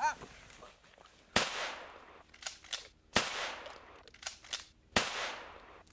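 Three gunshots, each about two seconds after the last, each dying away in a long echo. Between the shots come pairs of sharp, quieter clicks.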